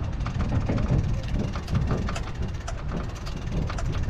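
Small waves splashing and lapping against a small boat's hull in shallow water, in quick irregular splashes, over a steady low rumble of an idling engine.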